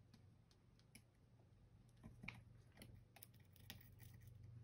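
Faint, scattered ticks and scratches of a small tool working at the plastic underside of a gaming mouse as its Teflon (PTFE) feet are pried off. A low hum comes in near the end.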